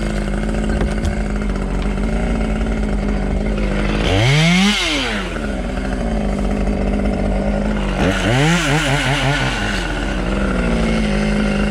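Two-stroke chainsaw idling steadily, revved up and back down about four seconds in and again, less evenly, around eight seconds in.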